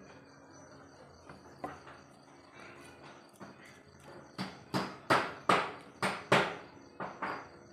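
Crickets trilling steadily in the background. Over the second half comes a quick run of about eight sharp knocks or taps, roughly three a second.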